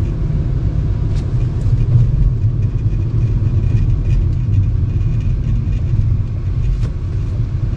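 Steady low rumble of a car on the move, road and engine noise with no changes in pace.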